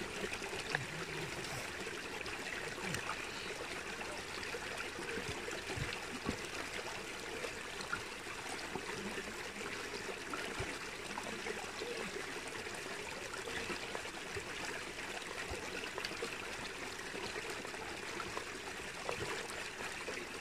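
A small stream running steadily, with occasional faint clicks.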